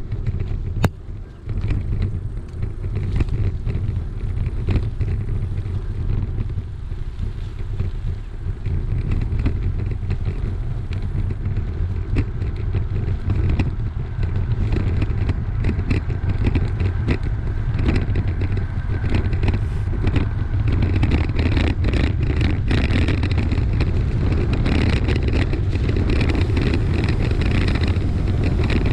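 Bicycle ride on a bumpy dirt track heard through a GoPro's microphone: steady low rumble of wind buffeting and tyre noise, with frequent small clicks and rattles from the bike going over the ruts, more of them in the second half.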